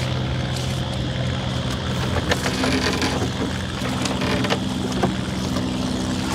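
Small river boat's engine running steadily, with a few scattered knocks and rattles on board.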